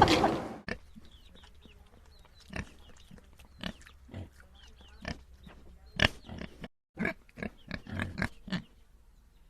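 Pigs grunting: short separate grunts at irregular spacing, coming in a quicker run about seven to eight and a half seconds in. A louder rush of noise fades out in the first half second.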